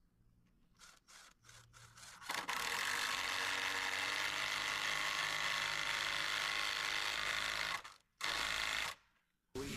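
Cordless drill driving a screw into a scrap timber, the motor running steadily for about five seconds, then a short second burst near the end to seat it. A few faint clicks come before it starts.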